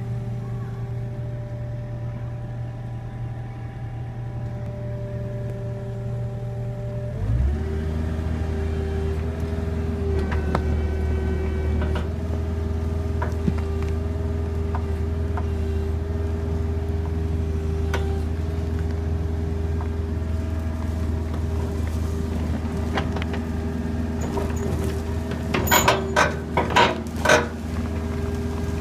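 Excavator engine and hydraulics running steadily. About seven seconds in, the engine note shifts lower and the sound grows a little louder. Near the end comes a quick cluster of sharp cracks and knocks.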